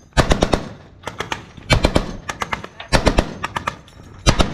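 Machine guns firing short bursts of a few rounds each, about six bursts in quick succession, with the shots echoing after each burst.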